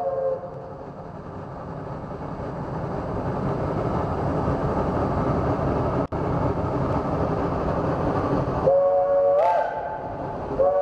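Steam locomotive approaching, its exhaust growing steadily louder as it works toward the camera. Its chime whistle, several notes at once, cuts off just at the start, sounds again for about a second near the end with its pitch sliding up as it opens, and starts once more right at the close.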